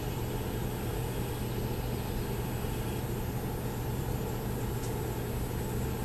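Home HVAC air handler's blower running steadily, moving about 950 cfm through the ductwork: a constant low hum under an even rush of air.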